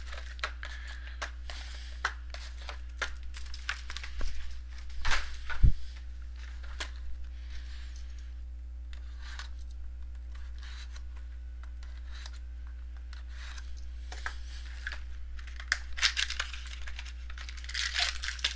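A foil trading-card pack being handled and torn open, its wrapper crinkling and crackling in scattered bursts, most about 4 to 6 seconds in and again near the end, over a steady low hum.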